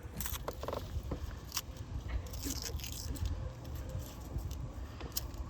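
Wind rumbling on the microphone, with scattered light clicks and small pops.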